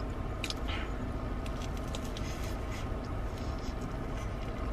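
Chewing and biting into a fried, potato-coated Korean corn dog, with scattered small crunches and mouth clicks, over a steady low hum inside a car.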